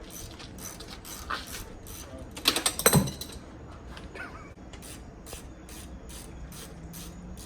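Hand ratchet wrench clicking in steady strokes, about three or four clicks a second, as fasteners come off the Yamaha Banshee quad during its teardown. A louder metallic clatter comes about two and a half seconds in.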